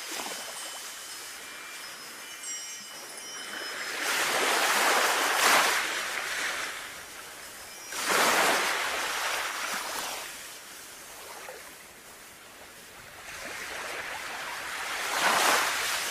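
Sea waves washing in and drawing back in three slow swells, with wind chimes ringing lightly over them, clearest in the first few seconds.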